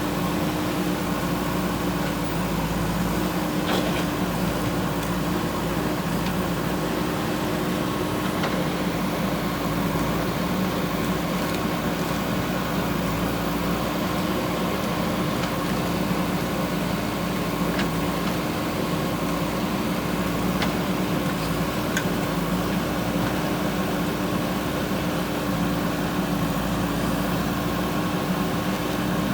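JCB 3DX backhoe loader's diesel engine running at a steady speed, an even hum with a few faint ticks.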